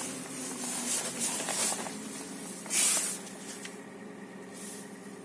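Hyundai Solaris 1.4-litre four-cylinder petrol engine idling just after a cold start, a steady even run. Short hissing rustles sound over it in the first two seconds, with a loud one a little under three seconds in.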